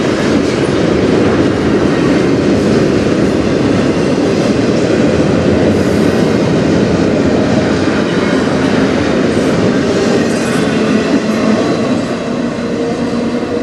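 CN double-stack intermodal train's container well cars rolling past at speed, steel wheels on the rails making a loud, steady rumble that eases a little near the end as the last cars go by.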